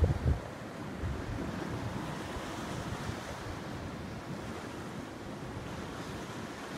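Sea surf washing against the rocks below the cliff, with wind buffeting the microphone in an uneven low rumble. A brief thump comes right at the start.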